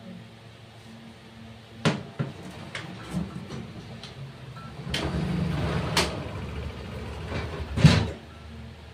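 Clunks of a scooter being rocked on its centre stand: a sharp knock about two seconds in and a louder one near the end, with smaller clicks and a low rumble swelling in between.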